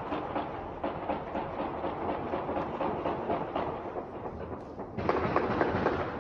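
Distant celebratory gunfire and firecrackers at New Year's midnight, merging into a dense, continuous crackle over a low rumble. It jumps louder about five seconds in.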